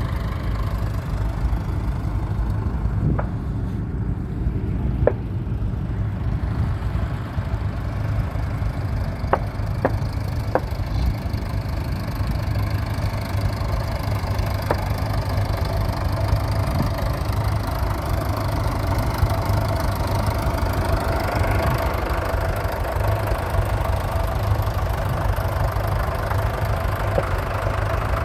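Tractor diesel engine idling steadily with a low rumble, with a few sharp clicks over it.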